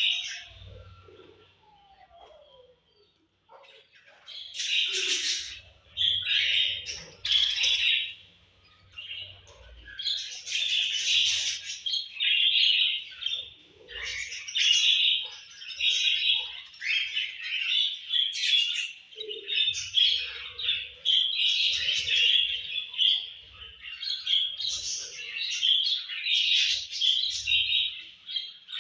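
Budgerigars chirping and chattering, in rapid short high-pitched chirps. After a brief lull at the start, the chirping runs almost without a break.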